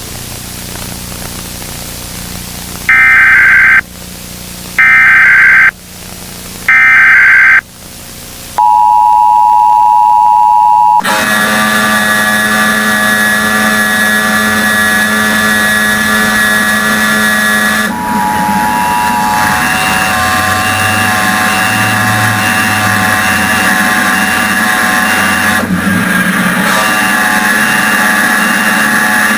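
Emergency Alert System signalling: three short screeching bursts of SAME header data, then the two-tone attention signal. About 11 seconds in, the attention tone breaks off into a loud, dense jumble of overlapping steady tones and noise that runs on, the alert garbling as it fails.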